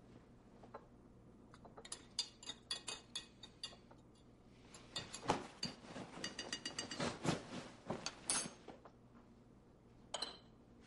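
Light clicking, clinking and rustling of things being handled. It comes in a stretch about two seconds in, a busier one from about five to eight and a half seconds, and a short cluster of clicks near the end.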